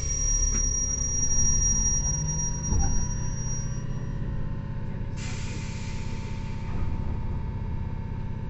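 Running sound inside a JR 115 series electric multiple unit's motor car: a steady low rumble from the wheels, bogies and MT54 traction motors, with a high steady squeal for about the first four seconds and a knock near three seconds in. About five seconds in, a sudden hiss sets in and slowly fades.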